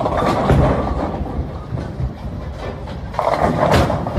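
Bowling ball rolling down a wooden lane with a low, continuous rumble, and a louder burst of clattering near the end.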